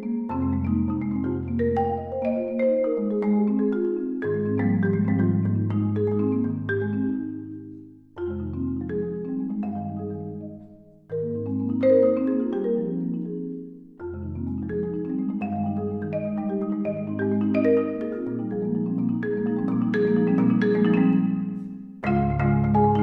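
Instrumental background music of quick, struck, pitched notes over low bass notes, dropping away briefly several times between phrases.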